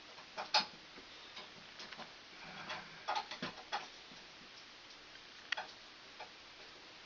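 Irregular small clicks and taps of a light switch and stiff copper wire being handled as the ground wire is fitted to the switch's terminal clamp.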